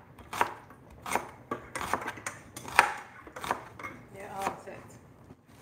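Chef's knife slicing through an onion and knocking on a wooden cutting board: a series of sharp, irregularly spaced knocks.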